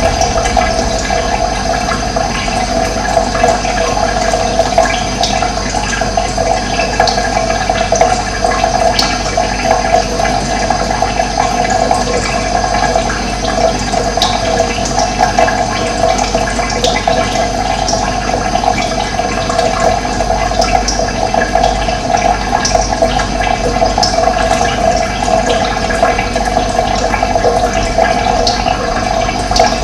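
Running water rushing steadily, with brief high bird chirps scattered through it.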